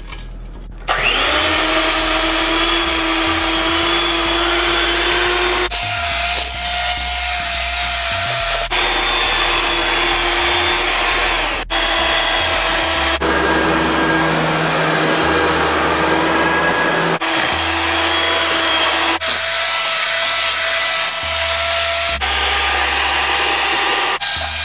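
Sunbeam Mixmaster electric hand mixer starting up about a second in with a rising whine, then running steadily as its beaters cream butter and sugar and beat in eggs. The motor's pitch and level change abruptly several times.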